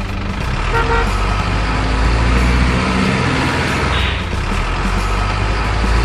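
Heavy truck engine running steadily, with a short horn toot about a second in and a brief hiss about four seconds in.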